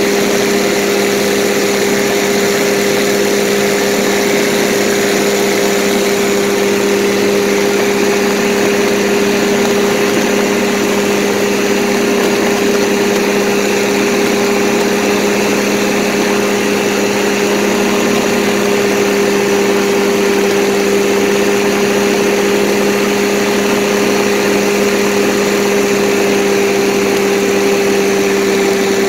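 Paramotor engine and propeller running in flight, a steady drone whose pitch holds constant throughout, over a continuous hiss of rushing air.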